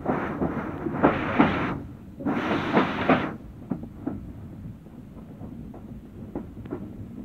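Steam locomotive No 85 working close by, its exhaust beats and steam loud for about the first three seconds. The sound then falls to a quieter running rumble with a few sharp clicks from the wheels and track.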